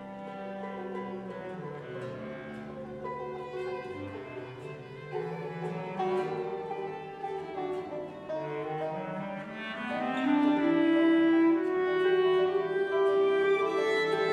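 Instrumental folk-song passage played by a small acoustic ensemble: violin, clawhammer banjo, acoustic guitar and bass clarinet, with no singing. About ten seconds in, a long melody line slides upward and the music grows louder.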